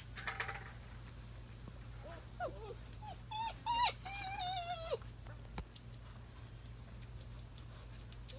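German Shepherd puppy whining: a string of short, high, wavering whines from about two seconds in, ending in a longer one of about a second.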